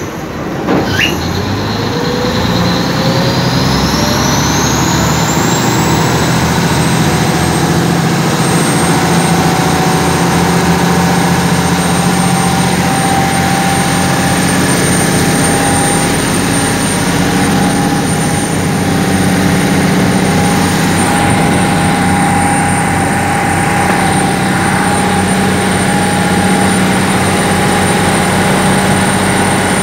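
Passenger boat's engine heard from the passenger deck, rising in pitch over the first few seconds as it throttles up, then running steady and loud.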